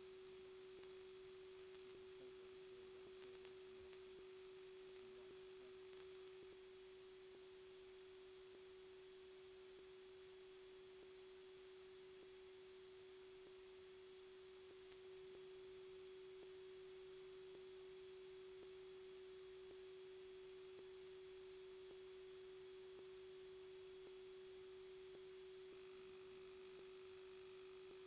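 A steady, unchanging pure electronic tone at a middle pitch, with a fainter high-pitched whine above it. It sounds like a recording or electrical artifact, not a natural sound.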